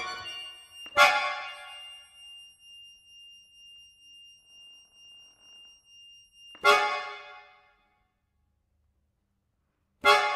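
Solo accordion: a sharp accented chord about a second in, over a single high note held for several seconds with a slow pulsing swell, then two more sharp chords, one about six seconds in and one near the end, each dying away quickly into silence.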